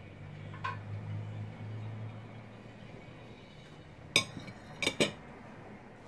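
Kitchen pots and utensils clinking: three sharp metallic clinks, one about four seconds in and two close together about a second later. A low steady hum sounds during the first two seconds.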